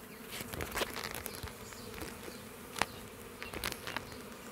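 A swarm of honeybees buzzing in a steady hum around an opened electrical meter box. Scattered rustles and knocks sound close to the microphone, the sharpest about three seconds in.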